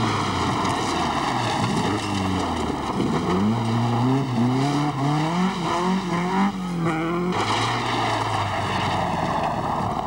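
A rally car's engine pulls hard through the gears. Its pitch climbs, drops at each gear change and climbs again, several times in a row from about two seconds in. After about seven seconds it holds steadier for a moment.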